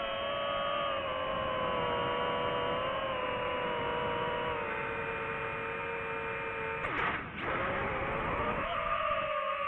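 Whine of a DJI FPV drone's motors and propellers in flight: several steady tones that drift slowly in pitch with the throttle. About seven seconds in the tone breaks off briefly, then comes back a little higher.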